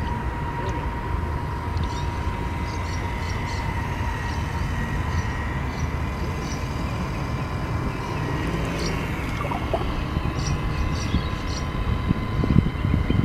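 Model tugboat's geared electric motors giving a thin, steady whine over a low rumble; the whine fades out about two-thirds of the way through. Short, faint high chirps come and go.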